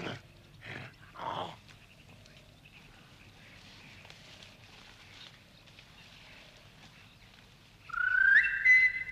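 A person whistling: a quick rising whistle about eight seconds in that levels off and holds a high note for about a second. A few short, brief noises come before it in the first second and a half.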